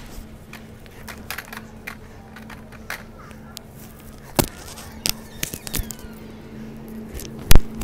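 Big-store aisle ambience: a steady electrical hum under scattered clicks and rattles from shopping carts being pushed past. There is one sharp, loud knock near the end.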